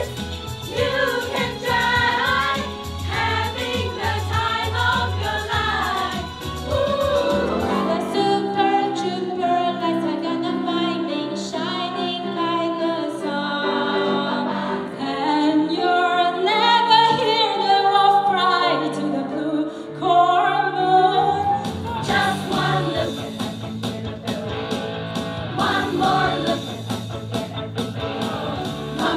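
Song with a group of voices singing over full accompaniment. From about eight seconds in, the bass and beat drop out and the singing carries on over lighter backing. The full accompaniment comes back a little after twenty seconds.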